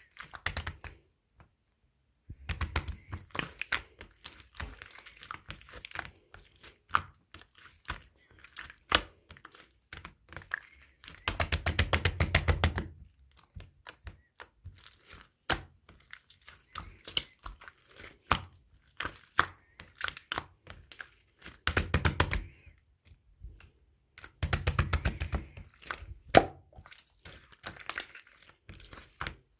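Clear slime being squished and pressed by hand, giving scattered sticky clicks and pops. It breaks into dense runs of rapid crackling pops about four times, the longest near the middle.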